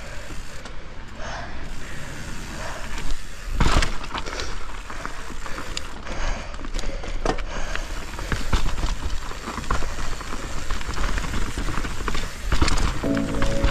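Mountain bike riding down a snowy trail: a steady rush of noise with the bike rattling and clicking over the ground, and a heavy knock about four seconds in. Music comes in near the end.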